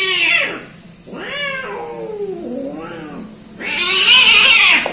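Two domestic cats in a fight standoff, yowling: drawn-out wavering caterwauls that rise and fall in pitch, then a louder, harsher yowl about three and a half seconds in as they clash at the gate.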